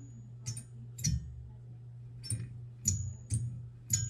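Sharp metallic clinks and taps, about seven at uneven spacing, several ringing briefly, as hand tools work at the shaft of a furnace exhaust draft inducer motor that will not separate. A steady low hum runs underneath.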